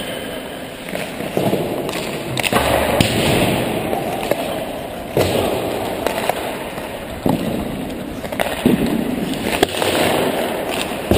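Ice-hockey skate blades scraping and carving on rink ice, broken by about six sharp cracks of pucks hitting sticks and the boards during a warm-up.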